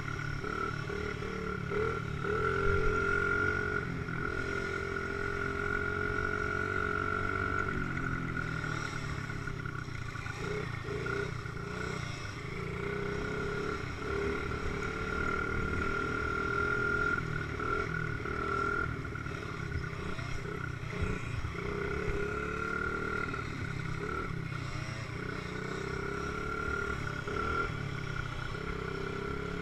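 Dirt bike engine running under way, picked up by a camera mounted on the bike, holding a fairly steady pitch with small rises and falls in revs over a low rumble.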